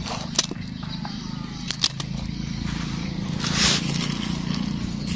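Raw sugarcane being bitten and chewed: two sharp crunches of the fibrous stalk and a hissing tear or slurp about three and a half seconds in, over a steady low hum.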